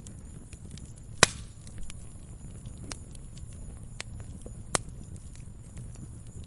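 Burning wood fire: a steady low rumble of flames with scattered small crackles, and two sharp loud pops, the louder about a second in and another about three-quarters of the way through.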